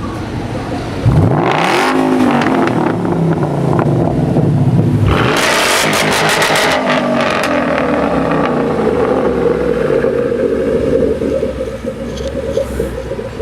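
Ford Mustang V8 with an aftermarket exhaust revving hard. It jumps up sharply about a second in, gives another harsh burst of throttle around five seconds, then runs steadily and eases off near the end.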